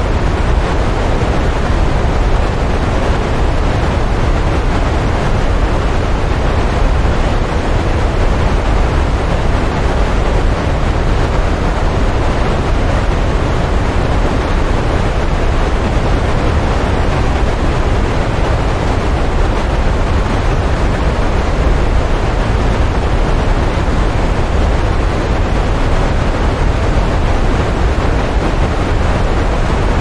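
Stream water rushing over rocks: a steady, loud wash with a heavy low rumble.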